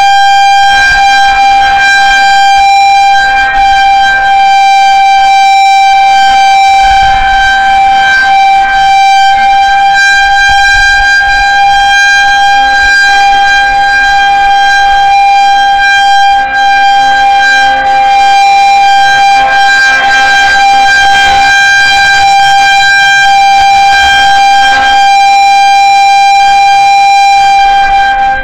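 Federal Signal 2001-130 electromechanical outdoor warning siren sounding a steady, unchanging single tone at full speed, very loud, for a tornado warning.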